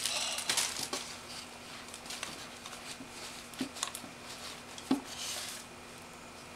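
Soft rustling of packaging with scattered light clicks and knocks of handling as a camera is lifted out of its box, with a sharper knock about five seconds in.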